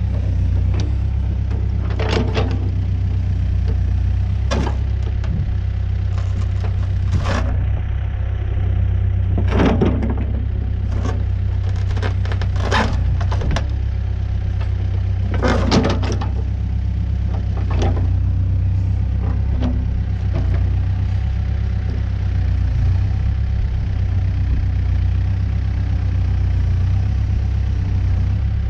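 New Holland B100B backhoe loader's diesel engine running steadily, with a series of sharp knocks and clanks over it in the first two-thirds, then only the engine.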